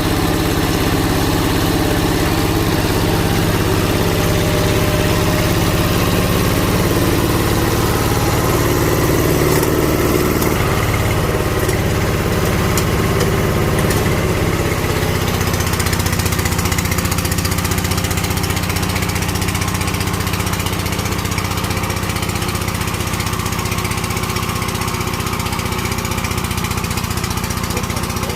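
Single-cylinder diesel engine of a two-wheel walking tractor (power tiller) running steadily under load while tilling soil. Its note shifts slightly about ten seconds in.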